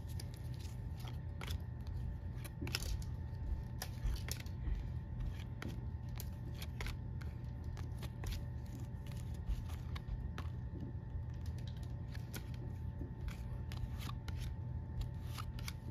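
Stack of baseball trading cards being flipped through by hand, one card at a time: irregular light clicks and slides of card against card, with soft taps as cards drop onto the pile.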